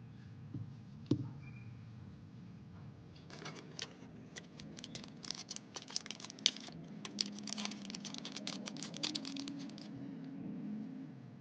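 Plastic packaging being handled: a single sharp click about a second in, then about seven seconds of rapid scratching and crinkling that stops shortly before the end.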